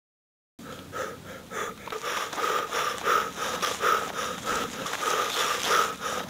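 Rhythmic heavy breathing, pant after pant at about two to three breaths a second, starting about half a second in.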